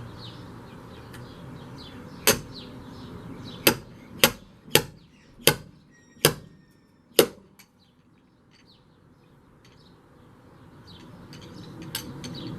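Hammer blows on the Jeep's metal windshield frame. There are about seven sharp strikes, spaced unevenly over a few seconds, then a pause and a couple more near the end.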